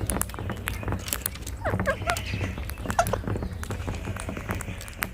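Rose-ringed parakeets calling in a few short notes that fall in pitch, among many scattered sharp clicks and a steady low rumble.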